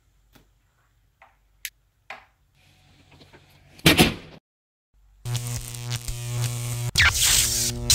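A few soft handling clicks, then a loud thump about four seconds in and a moment of silence. From about five seconds a loud electrical buzz sets in, a steady hum with crackling static over it.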